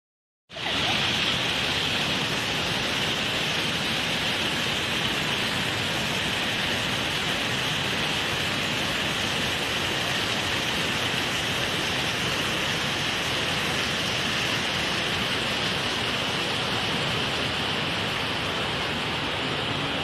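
Steady rushing of a high waterfall plunging into a gorge, starting about half a second in.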